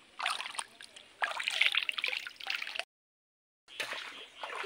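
Water splashing and sloshing as hands scoop and stir in a shallow spring pool, in two irregular bursts, broken by a sudden dead-silent gap of under a second, then splashing again.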